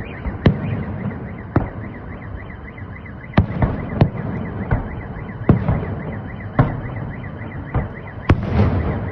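Fireworks salute shells bursting, with sharp bangs every second or so. Under them a car alarm wails throughout with a fast, repeating warble.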